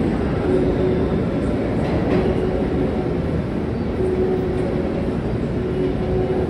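New York City subway trains rumbling through an underground station, a steady rumble with a hum that comes and goes: one train pulling out on the far track while another approaches on the near track.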